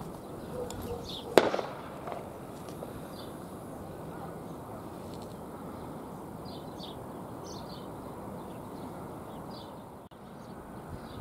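A single distant shotgun shot, one sharp crack about a second and a half in, over a steady outdoor background.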